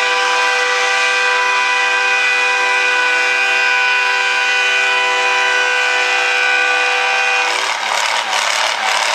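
Antique Oliver tractor engine under full load, pulling a weight-transfer sled at a steady, unchanging pitch. About seven and a half seconds in, the steady tone gives way to a rough, rattling sound.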